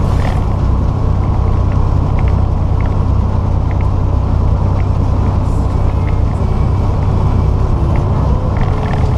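Heavy truck's diesel engine droning steadily, heard from inside the cab while driving, with scattered light ticks.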